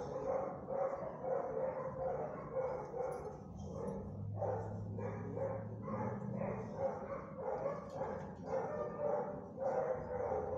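Dogs barking over and over, roughly two barks a second.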